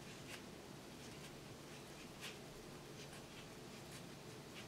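Floral tape being stretched and wrapped around a wire flower stem: faint rubbing and crinkling, a few soft scratchy strokes over a low room hum.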